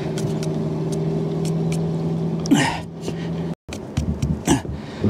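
A steady low engine hum, with light ticks and scrapes of a stick stirring thick sealant in a metal can. The hum cuts off abruptly a little past halfway. Short knocks and a breathy vocal sound follow.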